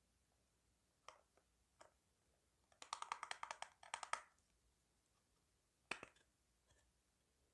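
Slime being squeezed and kneaded by hand, giving wet clicking pops: a couple of single clicks, then a quick run of rapid clicks for about a second and a half, and one sharper pop near the end.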